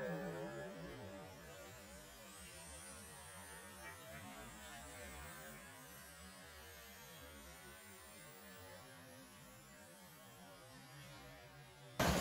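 Faint steady electrical hum with hiss, the sound track kept low; it jumps suddenly much louder right at the end.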